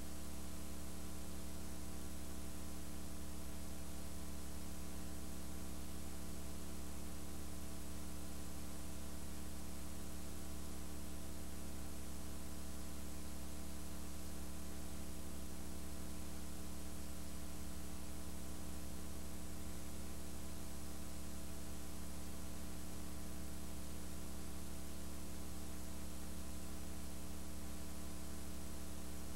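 Steady electrical mains hum with a buzzy overtone series over hiss. The level never changes and no arena or crowd sound comes through.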